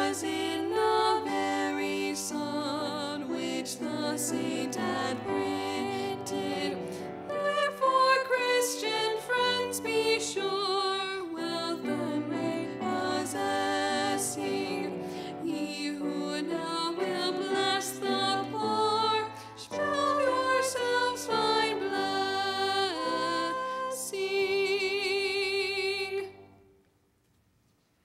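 Two women singing a carol over instrumental accompaniment. The song ends on a long held note with vibrato that stops about 26 seconds in.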